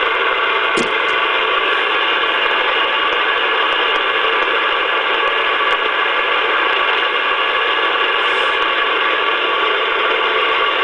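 Shortwave radio receiver in AM mode giving a steady hiss of static, cut off above the voice range by the receiver's filter, with faint steady whistles in it. A single click comes about a second in.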